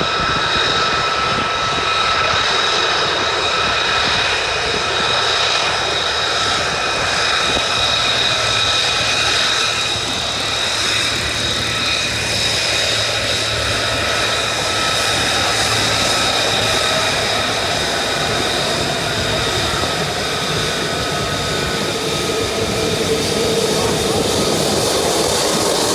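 C-17 Globemaster III's four turbofan jet engines running steadily in flight: a loud broad rush of jet noise with a steady high engine whine on top.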